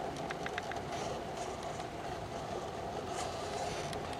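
Electric motor and gearbox of an RC scale crawler running steadily, a constant whine, with a few light clicks in the first second.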